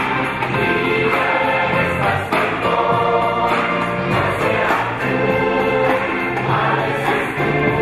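A large choir of men and women singing together, loud and continuous.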